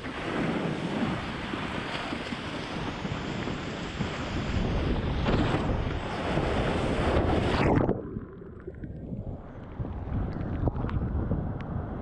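Wind blasting the camera microphone over rushing whitewater while windsurfing through surf. About eight seconds in, the sound suddenly drops and goes muffled, with a few small splashy ticks.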